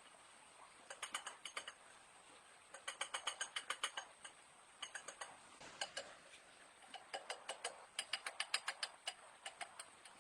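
A hand ratchet being worked in several short runs of rapid, evenly spaced clicks, about eight a second, with brief pauses between runs.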